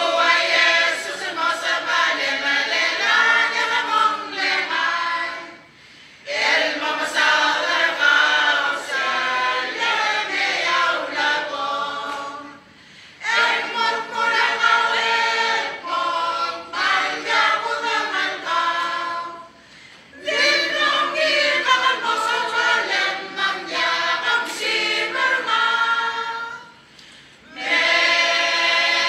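Mixed choir of men and women singing together in long phrases, with a short pause about every six or seven seconds.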